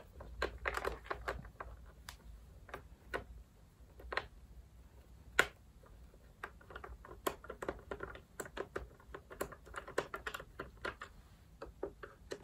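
Phillips screwdriver turning screws out of the plastic underside of a Shark Rotator vacuum's floor nozzle: a run of irregular small clicks and ticks of metal on screw and plastic, with a sharper click about five seconds in and denser clicking later on.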